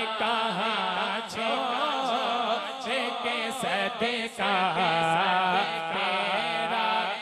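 Male naat reciter singing unaccompanied into a microphone: a long, wavering, ornamented vocal line over a steady low hum.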